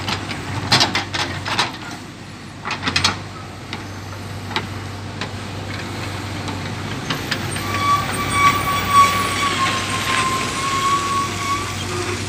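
JCB backhoe loader's diesel engine running steadily as it digs, with several sharp clanks in the first three seconds and a high steady whine held for about four seconds in the second half.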